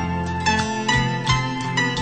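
Instrumental background music: plucked-string notes struck about twice a second, each ringing and fading, over a steady low bass.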